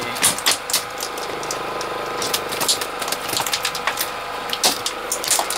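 A spinning reel being worked on a bent fishing rod, with irregular sharp clicks and knocks over a steady mechanical hum.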